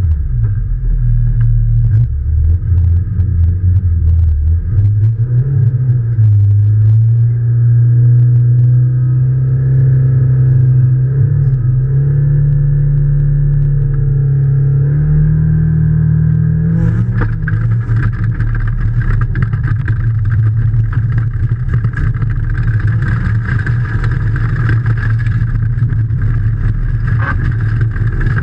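Rally car engine heard from inside the cabin, held at raised revs that slowly climb while the car waits at the start. About two-thirds of the way through, the car pulls away hard on gravel: the engine goes rough under full throttle, and tyre and stone noise and clicks join in.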